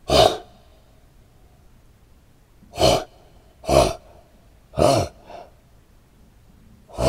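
An animal snorting: five short, sharp blasts of air through the nose at uneven gaps, the fourth followed closely by a weaker one.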